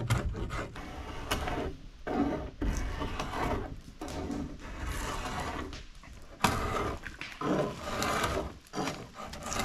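Large knife scraping and shaving along a pole, taking bark and knot stubs off to smooth it, in repeated rough strokes of uneven length.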